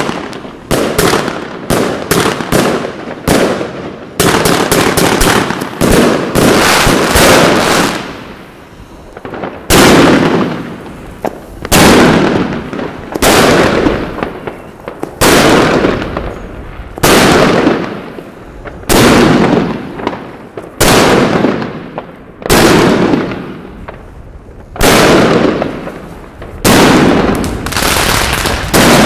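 Evolution Fireworks 'The Golden Age' 160-shot fireworks cake firing. The first few seconds are a rapid, dense string of shots. From there on come loud separate bursts about every two seconds, each trailing off before the next.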